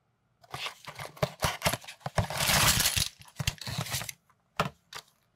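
A small cardboard toy box being opened and emptied: cardboard, paper and a plastic bag crinkling and rustling, with the loose plastic bricks in the bag clicking together. The rustle is densest about two to three seconds in, and there are two sharp clicks near the end.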